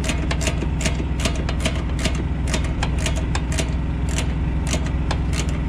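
A socket ratchet clicking in short, irregular strokes while tightening a nut on an air filter canister's clamp band, over the steady hum of an idling engine.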